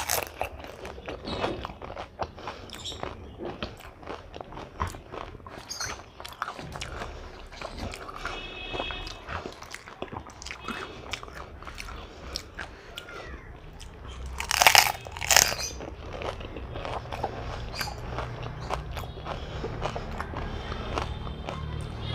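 Close-up eating of dahi fuchka: crisp fried puri shells filled with yogurt and toppings crunching as they are bitten, then wet chewing with small crackling mouth sounds. Two loud crunches come close together about two-thirds of the way through.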